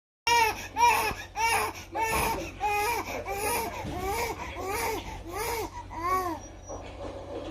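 A baby's voice crying in a run of about eleven short wails, each rising and falling in pitch, roughly two a second. It breaks off near the end.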